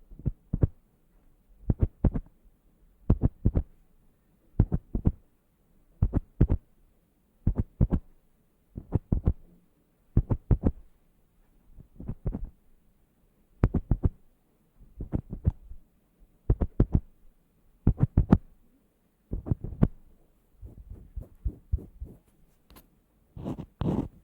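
Groups of two or three sharp taps or knocks, repeating in an even rhythm about every second and a half and turning less regular near the end.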